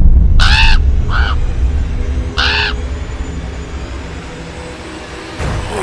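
Three harsh crow caws, the second shorter and fainter, over a loud low rumble that slowly fades away.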